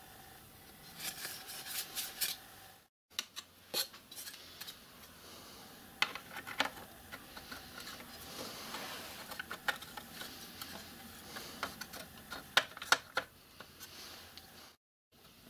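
Tinted clear plastic guard being handled and fitted over a lathe's pulley: scattered clicks, taps and rubbing as the sheet knocks against metal posts and parts.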